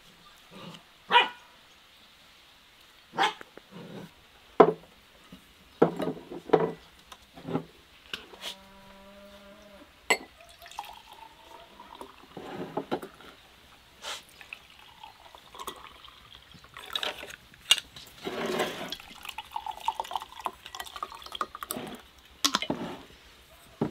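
A wooden serving spoon scraping and scooping rice onto ceramic plates, with scattered knocks and clinks. About a third of the way in, a drink is poured from a bottle into a drinking glass, its pitch rising as the glass fills, then a sharp clink; more pouring and glass clinks follow.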